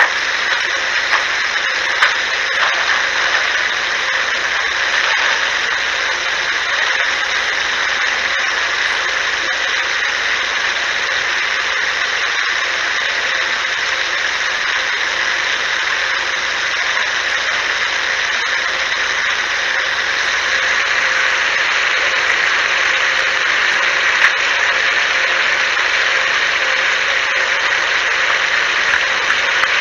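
Steady hiss of an unattended voice recorder's amplified recording, an even noise with no distinct events apart from one brief tick late on.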